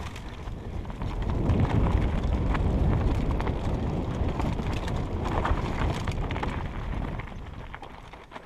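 Enduro mountain bike descending a dirt and loose-gravel trail: tyres crunching over stones, the bike rattling with scattered sharp knocks over bumps, and wind rumbling on the helmet-mounted microphone. It gets louder about a second and a half in and fades near the end.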